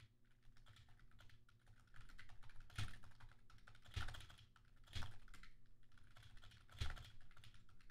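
Faint, scattered clicks of a computer keyboard, with a few louder keystrokes about a second apart.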